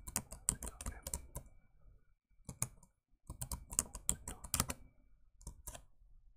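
Computer keyboard typing: a quick run of keystrokes, a pause of about two seconds, a second quick run, then a few single keystrokes.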